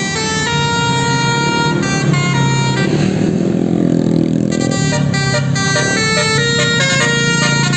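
Indonesian bus 'basuri' telolet horn playing a melody of held notes that step up and down in pitch. The tune breaks briefly about halfway through into a rumbling rush, then carries on.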